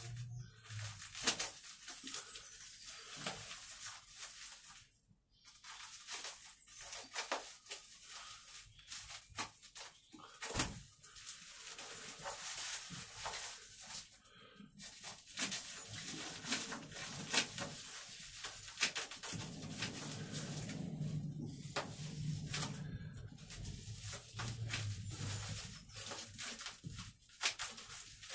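Cardboard tube and its tape being cut open and its wrapping pulled apart: a busy run of rustling and crinkling with many sharp snips and clicks.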